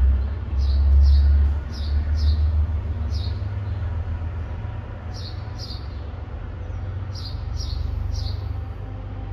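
Low rumble of an MBTA commuter train pulling away, loudest for the first few seconds and then fading. Over it a bird gives short descending chirps in twos and threes, again and again.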